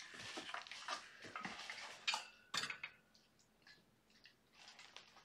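Clinks and scrapes of a kitten's food dish being handled and set down on the floor. They are busiest over the first three seconds, with two sharper knocks a little after two seconds in, then fade to a few faint ticks.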